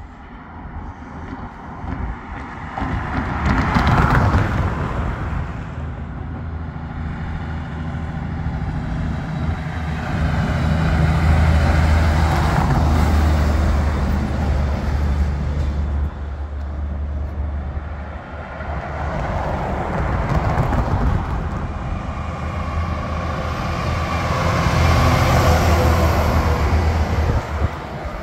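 Semi-trucks coming down a mountain grade on their engine brakes pass close by, a deep, steady diesel drone that swells in the middle and again near the end, after a brief rush of cars passing a few seconds in.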